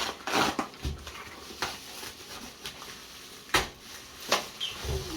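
Bubble wrap and packaging being pulled open by hand: soft rustling with a few sharp crackles spread through.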